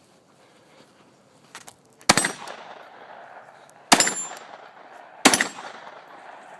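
Three shots from a 9mm Glock 19 Gen4 pistol, unevenly spaced about two seconds and a second and a half apart, each ringing out briefly after the crack.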